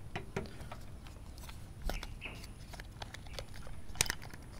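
Scattered small clicks and rattles of a Canon EOS-1V's plastic battery holder being handled, with the 2CR5 lithium battery inside it, and one sharp click about four seconds in.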